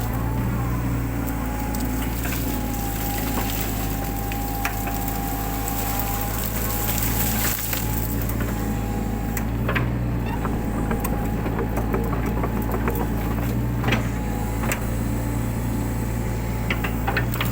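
Mini excavator's diesel engine running steadily with a high steady whine, while woody undergrowth cracks and snaps in scattered sharp bursts as it is torn out.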